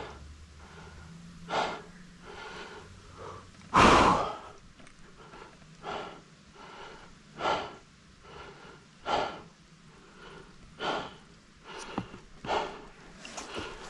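Heavy, rhythmic breathing, one hard breath about every one and a half to two seconds, the loudest about four seconds in.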